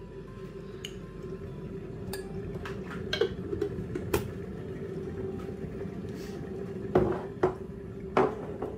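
Several sharp clinks and knocks, the loudest near the end, over a steady hum.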